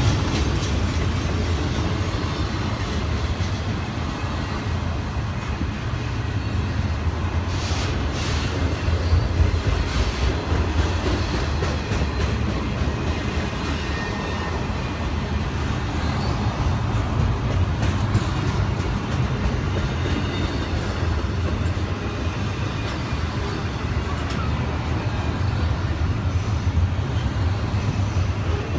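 A train rolling past on the tracks: a steady rumble of the cars' wheels on the rails, with a few brief clicks from the rail joints about a third of the way in.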